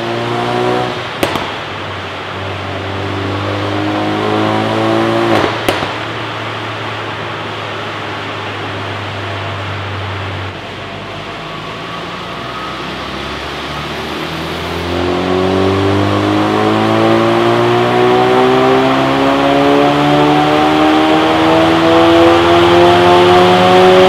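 Ford Focus RS Mk3's 2.3-litre turbocharged four-cylinder running on a chassis dynamometer. Two sharp exhaust pops come about a second in and again around five seconds in. From about fifteen seconds the revs climb steadily and grow louder in a long pull under load.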